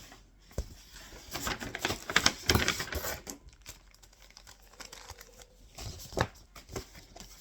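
Paper envelope being opened and its papers handled: crinkling and rustling of paper with small clicks, busiest in the first three seconds, then sparser.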